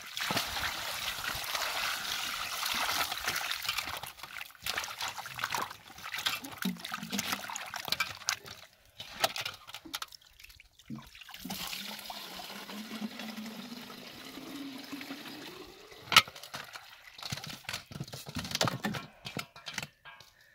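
Water pouring into a metal basin of raw chicken feet as they are rubbed and washed by hand, with splashing and sloshing. A single sharp knock, the loudest sound, comes about three quarters of the way through.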